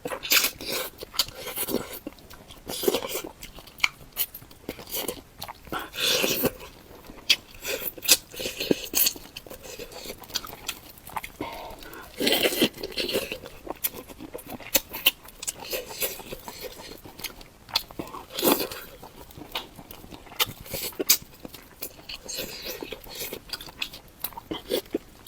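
Close-miked mukbang eating sounds: wet chewing and mouth smacking with many sharp clicks, from eating spicy bullfrog.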